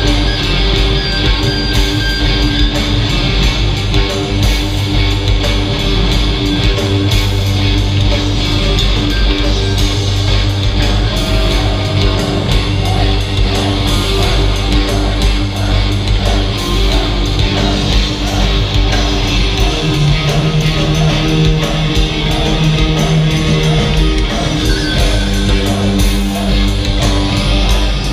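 A metal band playing live and loud through a concert PA, recorded from inside the crowd: distorted electric guitars and bass over drums with steady cymbal hits.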